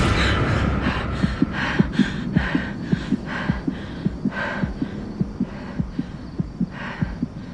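Heartbeat sound effect: a steady run of quick low thumps, a few a second, over a low hum, slowly growing quieter.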